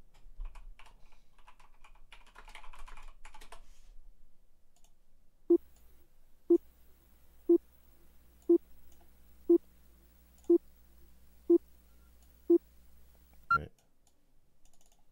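Faint keyboard and mouse clicking, then a run of eight short electronic beeps, one a second, each the same low tone, ending with a single higher blip.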